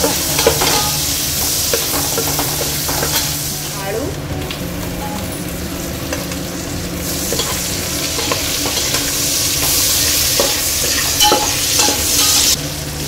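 Sliced onions frying in mustard oil in an aluminium pot, sizzling steadily while a metal spatula scrapes and taps against the pot as they are stirred. The sizzle grows louder about halfway through, once potato wedges go into the hot oil.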